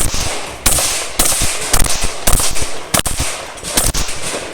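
Remington 870 pump-action shotgun fired in a rapid string, six or seven loud shots about one every half second to second.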